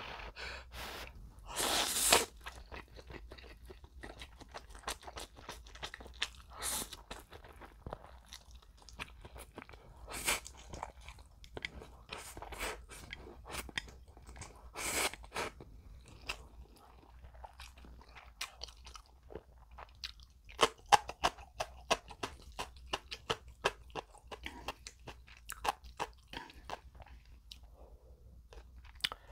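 Close-miked eating sounds of a man with a mouthful of spicy stir-fried instant noodles: steady wet chewing and smacking clicks, broken by several louder short slurps as he sucks noodles in off the plate.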